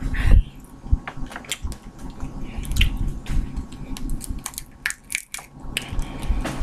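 Cooked crawfish being peeled by hand: the shell cracks and crackles in an irregular run of small, sharp clicks, with wet squishing of the meat.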